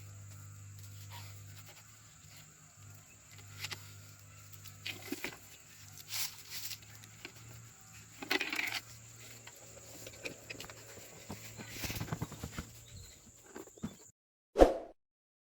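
Hands-on handling of small parts: scattered light clicks and knocks over a steady low hum, a few of them louder. Near the end the sound cuts out, then one sharp knock with a short ring.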